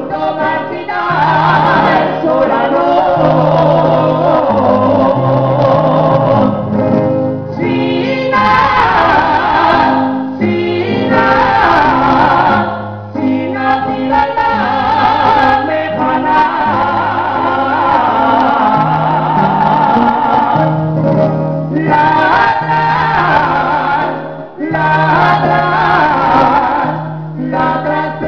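A man and a woman singing a jota as a duet, in long sung phrases broken by short pauses, over an accompaniment of plucked guitars.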